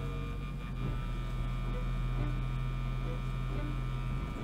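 Steady low electrical hum from the speaker of an early-1930s Auburn AC/DC TRF radio, heard while the set is slowly brought up on reduced voltage, with the low drone of a trash truck outside underneath it.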